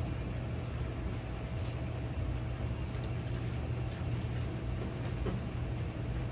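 Steady low mechanical hum of background machinery, with one faint click about two seconds in.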